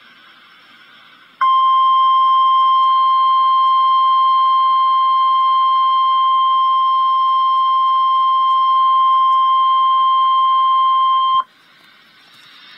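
NOAA Weather Radio 1050 Hz warning alarm tone: one steady, loud, high beep held for about ten seconds, starting about a second in and cutting off suddenly. It signals that an alert, here a severe thunderstorm watch, is about to be read. Faint radio hiss comes before and after it.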